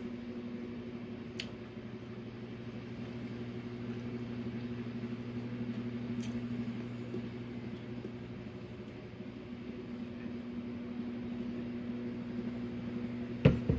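A steady low electrical hum, like a fan or appliance motor running, with a few faint clicks; a sharper click sounds near the end.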